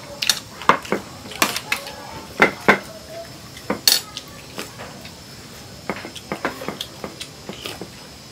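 Spoons and plates clinking and clattering at a shared meal: a string of sharp clinks, loudest and thickest in the first four seconds, one with a short ring about four seconds in, then a few lighter taps later.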